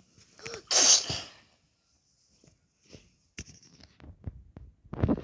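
A person's short, breathy, sneeze-like burst about a second in, then faint scattered clicks and bumps of phone and plush toys being handled, with a few sharper knocks near the end.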